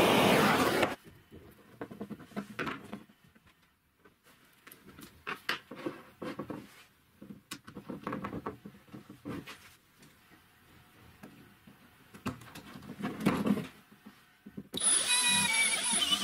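Gas torch flame burning, cut off about a second in. Then scattered clicks and knocks of plastic pipe fittings and metal bolts being handled. Near the end a drill starts and runs with a wavering whine as it bores into a plastic pipe fitting.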